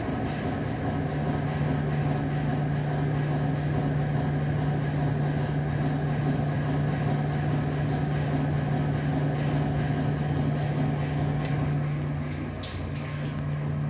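A steady low mechanical hum, starting about a second in and holding evenly over a constant background rumble, with a few faint clicks near the end.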